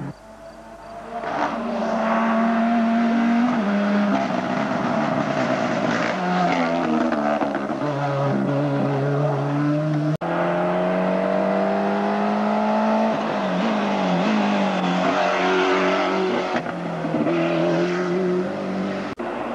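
Rally cars driven hard, one after the other. Each engine note climbs and drops repeatedly as the driver changes gear and lifts. The sound breaks off sharply about ten seconds in and picks up again with the next car.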